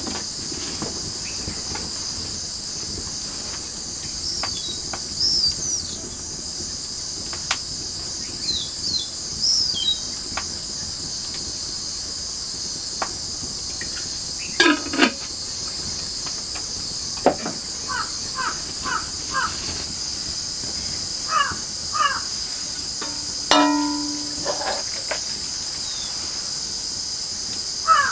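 Steady high-pitched insect drone with scattered bird chirps and a few crow caws.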